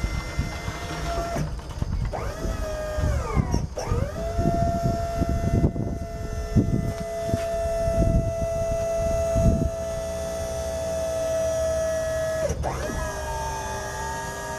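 Electric-over-hydraulic pump motor of a truck's tower hitch running with a steady whine. Its pitch dips sharply and recovers three times as load comes on. Irregular low thumps sound through the middle.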